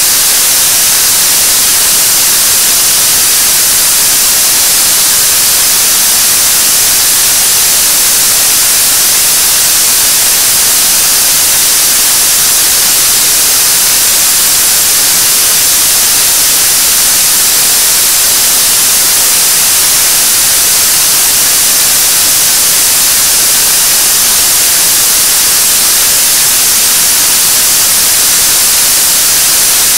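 7-ton-class liquid-propellant rocket engine (Korean Launch Vehicle third-stage engine, kerosene and liquid oxygen) firing steadily in its steady-state burn on a test stand. The sound is a loud, unchanging rushing noise with most of its energy high in the treble.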